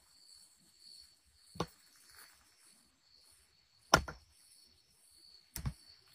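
Three short, sharp knocks, about a second and a half in, four seconds in (the loudest) and near the end, over a faint steady high chirr of night insects.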